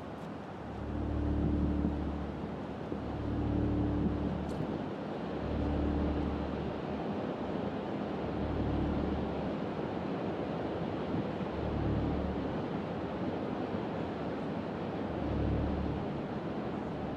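A deep, pitched hum that swells and fades in pulses every two to three seconds, over a steady background rumble.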